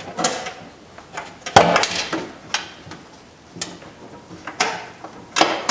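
Plastic push-pin clips snapping out of a 1998 Volkswagen Beetle's metal inner door panel as the wiring harness is pulled free: a series of sharp clicks and clattering knocks, about half a dozen, the loudest about a second and a half in.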